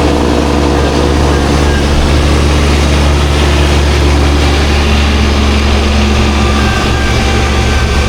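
Tractor engine running steadily at high revs while driving a snowblower: a loud, even hum of several steady tones over a rushing noise.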